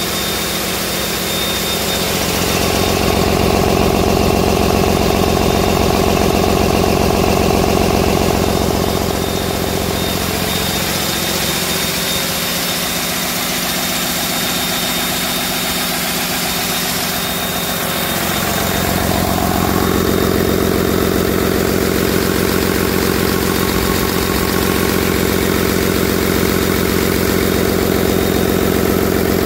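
2009 Cummins ISB 6.7-litre inline-six turbo-diesel engine running steadily at idle on a test stand. It grows louder a few seconds in, quieter through the middle, and louder again from about two-thirds through.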